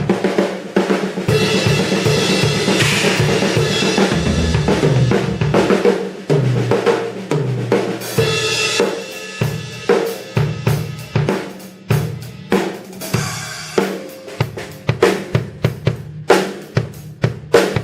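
Sonor Force 2007 drum kit played solo: a dense run of snare, bass drum and hi-hat strokes, with fills that step down in pitch across the toms and crashes on the Paiste cymbals.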